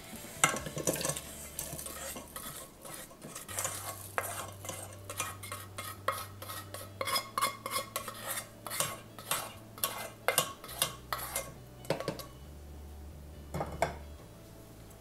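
A metal spoon scraping and tapping cooled, dry-roasted coconut and spice masala out of a pan into a mixer-grinder jar: a run of quick scrapes and clinks that thins out after about ten seconds, with a last couple of taps near the end.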